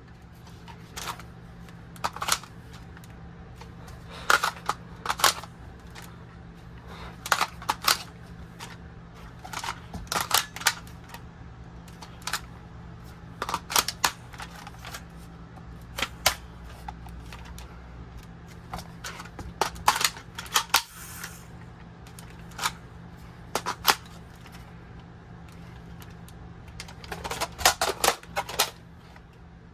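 Airsoft M4 rifle being reloaded by hand: a run of sharp, irregular clicks and snaps, single and in quick clusters, as its parts are worked.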